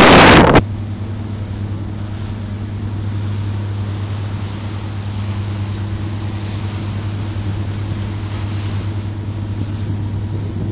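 Steady low drone of a boat's engine with an even hiss over it, after a loud burst of noise in the first half second.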